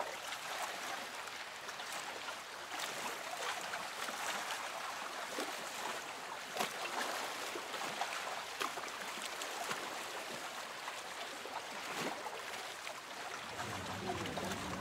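Steady soft wash of small waves on a sandy beach, with scattered faint clicks and crackles through it.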